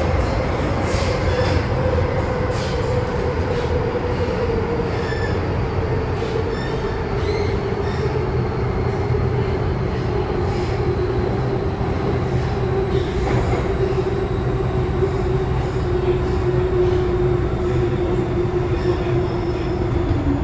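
MTR M-train electric multiple unit running, heard from inside the car: a steady rumble of wheels on track, with a whine that falls slowly in pitch throughout.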